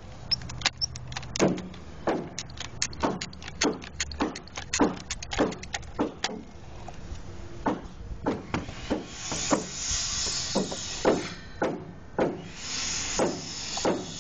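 Epoxy dispensing gun being pumped: a run of sharp, irregular clicks and knocks, a few a second, as more epoxy is forced into the anchor-bolt hole. A hissing noise joins about two-thirds of the way through and again near the end.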